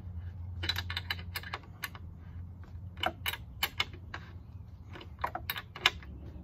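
Rapid metallic clicking and rattling from a nut being tightened on a bolt through a table leg's metal corner bracket, in three short runs of clicks.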